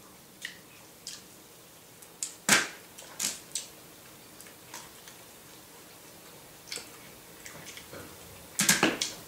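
Close-up eating sounds of fried chicken drumsticks being bitten and chewed off the bone: scattered short wet smacks and crunches, the loudest about two and a half seconds in and a quick run of them near the end.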